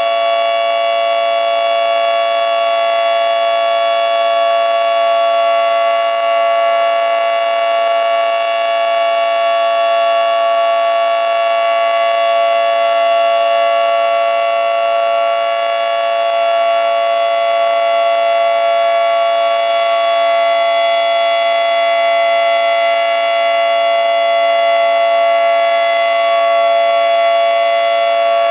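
Federal Signal 2T22 dual-tone electromechanical siren sounding a steady, loud alert, its two close pitches held together at full speed with no rise or fall.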